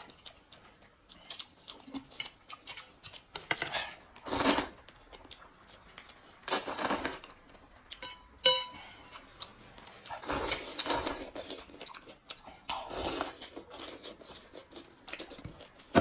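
Eating noises: several loud slurps and sucking breaths through the mouth, each lasting up to about a second, with one sharp metallic clink, chopsticks against a metal bowl, a little past halfway.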